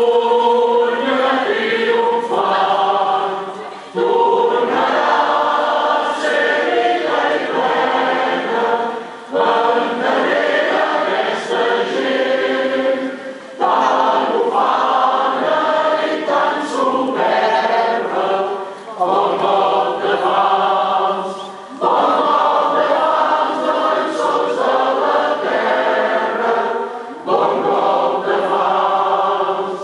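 A choir singing together in long sung phrases, each broken off by a short pause every few seconds.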